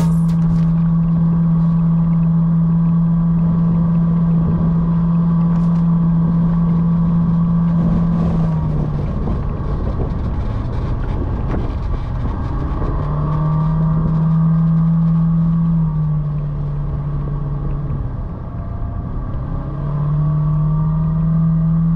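Vehicle engine running under load while driving up a rough dirt track, its steady note dropping about 9 seconds in and again about 16 seconds in, rising back after each drop, with road noise underneath.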